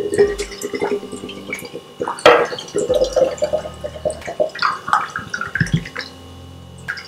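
Coconut water glugging and gurgling out of a small hole cut in a green tender coconut into a glass as the coconut is turned upside down, with irregular splashy clicks and short rising glugs.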